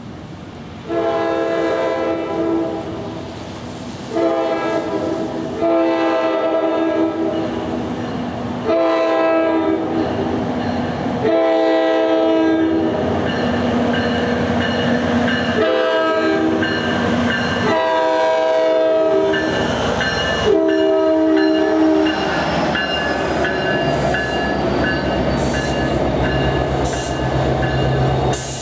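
The horn of an NJ Transit Alstom PL42AC diesel locomotive sounding a long series of blasts, about nine in all, most of them long, as the train approaches the grade crossing. After about 22 seconds the horn stops and the locomotive's EMD 710 diesel engine rumbles past close by, with the wheels clicking over the rails.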